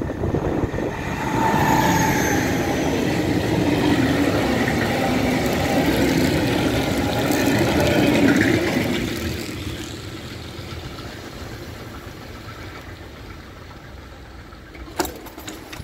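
A diesel freight locomotive passing close by with its engine running, then loaded flat wagons rolling over the rails. The noise is loud for the first nine seconds or so and then fades to a low rumble, with a sharp click near the end.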